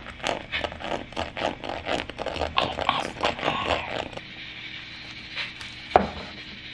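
A metal spoon scraping and tapping the crisp crackling skin of roast pork belly: dense, irregular crunchy crackles for about four seconds. Then a single knife chop through the crackling about six seconds in.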